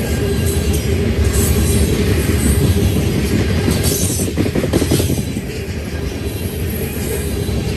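Loaded tank cars of a freight train rolling past close by: a steady, heavy rumble of steel wheels on rail, with a run of clacks over the rail joints about four to five seconds in.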